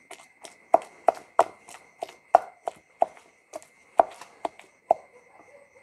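Wooden pestle pounding into a stone mortar, a regular run of dull knocks about three a second that stops near the end. Shrimp and chilies are being pounded into a sticky paste for shrimp laab, soft enough by now to cling to the pestle.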